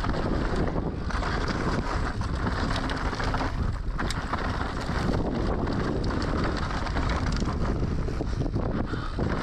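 Wind buffeting the microphone of a mountain bike descending a trail at speed, with tyres rumbling over dirt and the bike rattling in many short knocks.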